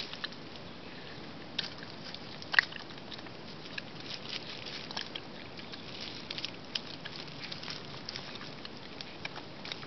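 Coati eating an orange: irregular short clicks and smacks of biting and chewing, the loudest about two and a half seconds in.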